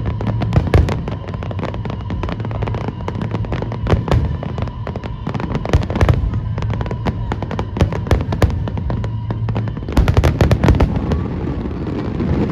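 Fireworks display: a quick succession of shell bursts and crackles, thickening into a dense flurry of bangs about ten seconds in.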